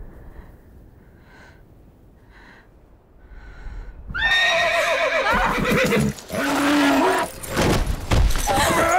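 A horse: faint regular sounds about once a second as it comes near, then about four seconds in a loud, shrill whinny, followed by more neighing and a loud scuffling commotion as the horse goes down with its rider.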